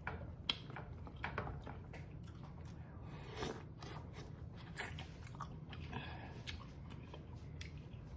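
Close-miked eating sounds of a person chewing seafood-boil food: scattered short wet clicks and smacks of the mouth, over a faint steady low hum.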